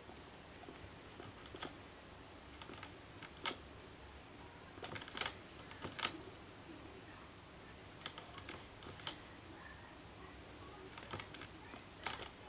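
Guinea pig drinking from the metal spout of a cage water bottle: sharp, irregular clicks, some in quick clusters.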